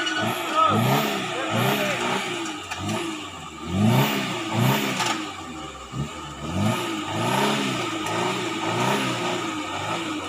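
Suzuki Jimny's engine revving up and down in repeated bursts, about one to two a second, as the 4x4 claws its way up a steep, muddy, rocky climb under load.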